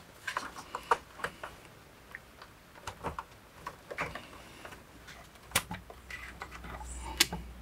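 Small clicks and rattles as the soldering iron's cable plug is pushed into the socket of a Weller EC2000 soldering station. About five and a half seconds in, a sharp switch click as the station is turned on, then a low steady hum from the powered station, with one more click soon after.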